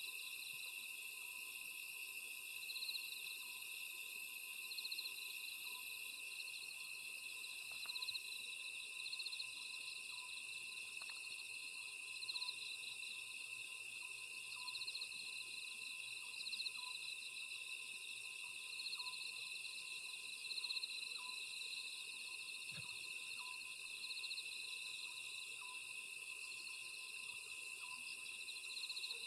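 Oriental scops owl repeating its short hooted call about once a second over a steady chorus of crickets and grass insects chirring and trilling at night. A very high, shrill hiss is the loudest sound at first and cuts off suddenly about eight seconds in.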